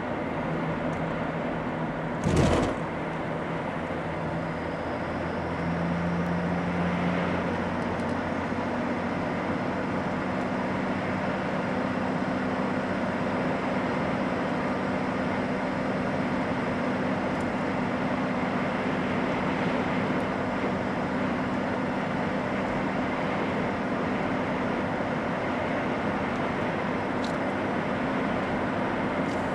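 Car engine and tyre noise heard from inside the cabin while driving. There is a single sharp thump a couple of seconds in as the wheels go over the level-crossing rails. The engine note rises a few seconds later as the car gathers speed, then runs steadily.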